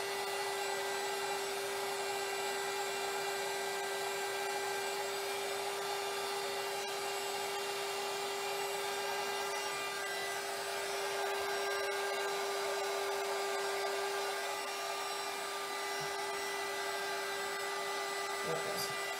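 Handheld craft heat gun running steadily, its fan blowing hot air with a constant hum, as it melts embossing powder on raised lettering.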